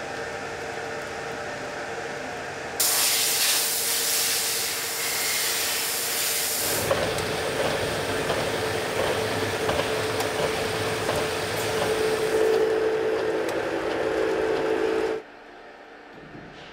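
Stone-workshop machinery running with a loud hiss of spraying water for a few seconds. Then a Thibaut polishing machine's head grinds over a wet stone slab with a steady hum. The sound drops away suddenly near the end.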